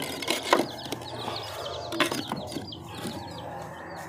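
Small birds chirping in a fast, steady series. Wooden planks knock sharply against bricks as they are laid down, about half a second in and again about two seconds in.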